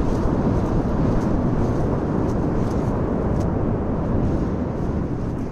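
Westerly wind buffeting the microphone: a steady, fluttering low rumble, with a few faint ticks midway.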